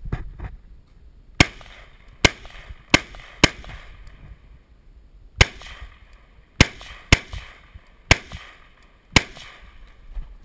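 A semi-automatic .223 rifle (H&K MR223) firing nine single shots: four in quick succession, a pause of about two seconds, then five more at uneven intervals, each sharp crack echoing briefly.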